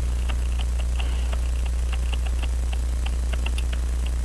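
Steady low electrical hum, with faint light clicks of small metal parts, irregular at about four or five a second, as the Hamilton 974 pocket watch movement and its dust shield are handled.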